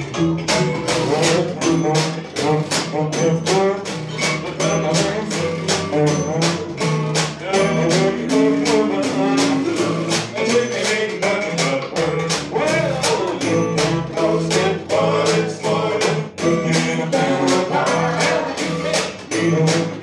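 Live acoustic swing band playing: upright double bass holding a steady bass line under guitar, with a crisp percussion stroke about two or three times a second.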